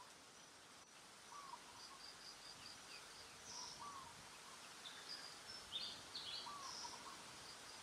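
Faint forest ambience with several birds calling: a short call repeating about once a second and runs of quick, high chirps, over a steady hiss of insects.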